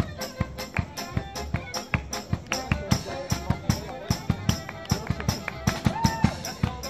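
Street band playing a quick tune: violin and accordion carry the melody over double bass, acoustic guitar and a drum kit beating a steady fast rhythm.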